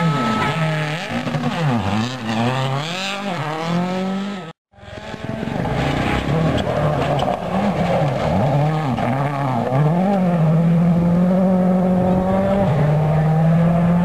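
World Rally Cars at full speed, their turbocharged engines revving up and dropping back again and again through gear changes as they pass. There is a sudden break about four and a half seconds in, and near the end one engine holds a steady note.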